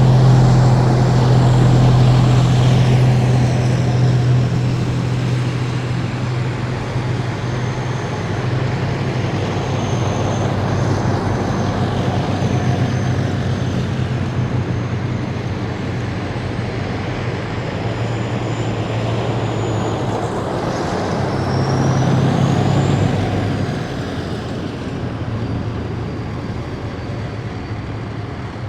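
A column of heavy military vehicles drives past, with a steady low diesel engine drone and tyre and road noise. It is loudest at the start and again about three quarters of the way in as another vehicle passes, then fades away.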